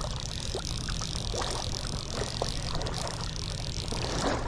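River current rushing and splashing around a wading angler's legs, with a steady high hiss and wind rumbling on the camera microphone.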